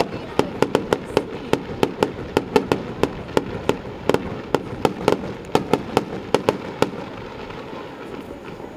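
Fireworks going off: a rapid run of sharp bangs, about four a second, that stops about seven seconds in.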